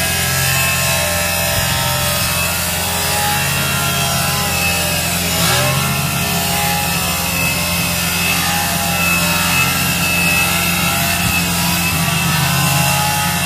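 Power tool cutting through the roof panel of a Land Rover Discovery, a continuous cutting noise whose pitch wanders up and down without a break.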